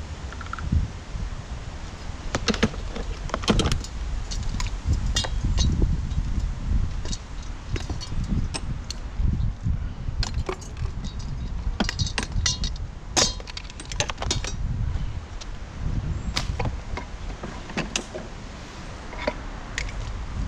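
Hard objects being handled and rummaged through: irregular clinks, clanks and knocks, some of them metallic, over a steady low rumble.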